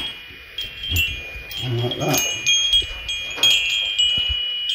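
Metal-tube wind chimes jangling and ringing, their tubes knocked again and again as an arm pushes against them.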